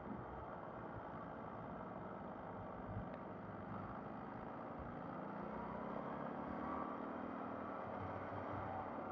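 MV Agusta Brutale 800's three-cylinder engine under way on a ride, its pitch rising steadily as it pulls in gear from about four seconds in, over a steady rush of wind and road noise.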